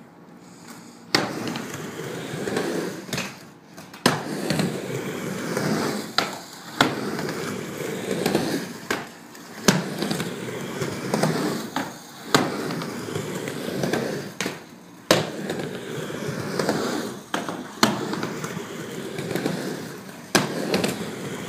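Small hard wheels rolling on hard ground with a rough rumble, broken by a sharp clack every one to three seconds.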